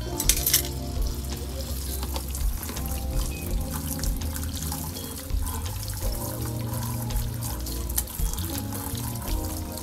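Tap water running and splashing in a stainless-steel sink while air fryer racks and a tray are scrubbed in soapy water, with small knocks of the racks against the tray, over steady background music.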